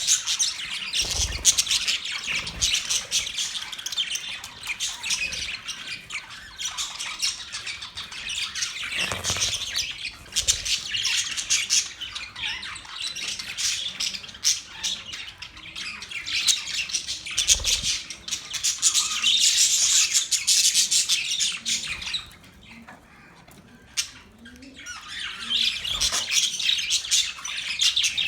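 Budgerigars chattering and chirping continuously in fast warbling runs, dropping to a brief lull about three-quarters of the way through before resuming.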